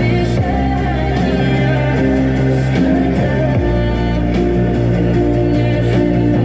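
Loud music with guitar and a steady bass line, in an instrumental stretch of a song.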